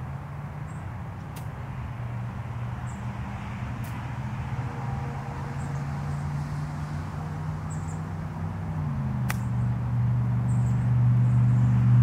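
A small engine running steadily, stepping up in pitch and growing louder about nine seconds in, with a few sharp clicks and faint bird chirps.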